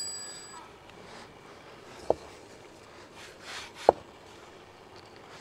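Hands folding a thin sheet of fresh pasta dough on a floured wooden board, with two soft knocks on the wood about two and four seconds in and a brief dry rustle just before the second. At the start, the ringing of an electronic notification chime fades out.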